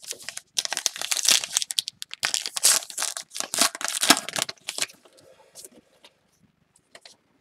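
Baseball card pack wrapper being torn open and crinkled by hand: a dense crackle for about four seconds, then only faint rustles and a few soft ticks as the cards come out.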